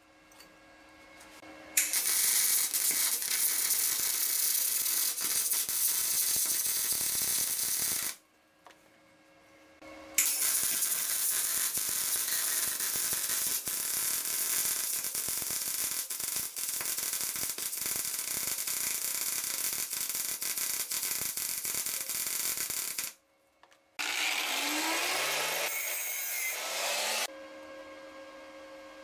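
MIG welding arc crackling and sizzling as a steel tube is welded to a perforated steel disc. It comes in three runs: one of about six seconds, a long one of about thirteen seconds, then a short one of about three seconds, with brief pauses between them.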